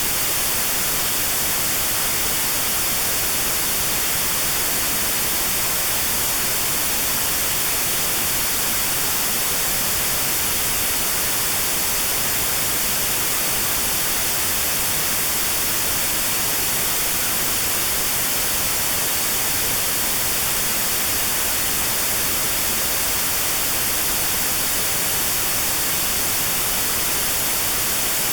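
Synthetic white noise with a narrow notch cut out around 4 kHz, playing as a steady, unchanging hiss. This is notched sound therapy for 4 kHz tinnitus.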